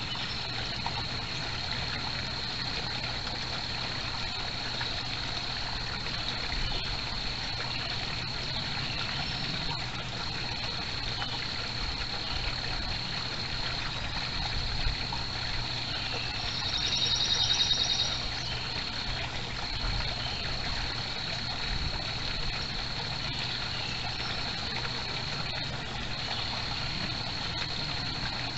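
Backyard koi pond water trickling steadily, over a low steady hum. A brief high-pitched trill sounds about two-thirds of the way through.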